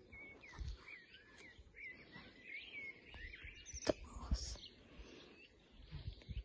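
Small birds chirping in short, repeated curving notes, over a low outdoor rumble. One sharp click comes just before four seconds in.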